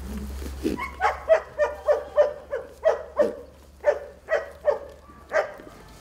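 An animal calling in a quick series of about a dozen short, sharp calls, roughly three a second, starting about a second in and stopping shortly before the end.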